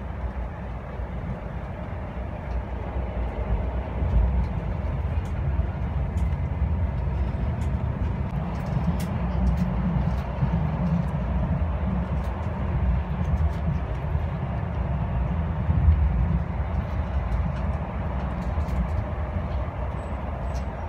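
Cabin noise of an electric passenger train running along the line: a steady low rumble with faint scattered clicks and rattles.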